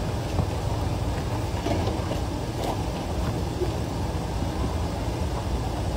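Off-road SUV's engine running steadily at low revs as the vehicle creeps down a steep rock slope, with a few faint ticks over the low rumble.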